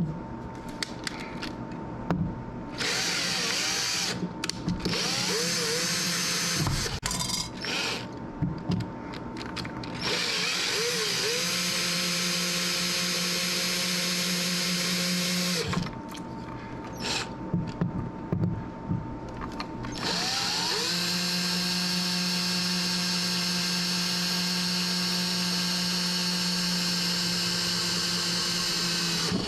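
Electric drill motor running in several spells: a few short bursts, then two long runs of several seconds each that spin up to a steady whine and hold it, with small clicks and handling noise in the gaps.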